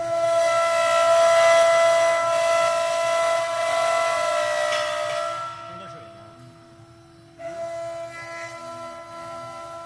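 CNC router spindle carving a wooden cylinder turning on a 4-axis rotary: a high, steady whine with the hiss of the bit cutting wood. It eases off about five and a half seconds in and cuts in again, quieter, about two seconds later.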